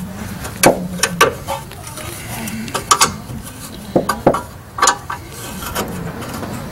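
Irregular sharp metallic clicks and clunks, about ten in all, from a wrench and steel brake hardware being worked at a rear disc brake caliper bracket as the bracket and pads are loosened and pulled off.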